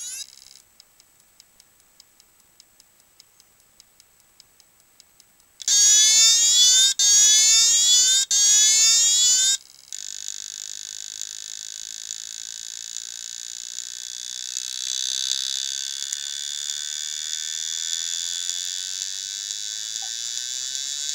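Old, dead IBM 2.5-inch 720 MB laptop hard drive making weird sounds: quick faint regular ticking for about five seconds, then a loud whine rising in pitch over and over for about four seconds, broken twice by short gaps, then a steady high-pitched whine.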